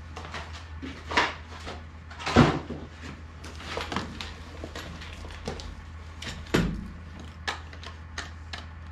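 Plastic packaging and a small cordless tool handled and set down on a hard counter: scattered clicks and knocks, the loudest about two and a half and six and a half seconds in.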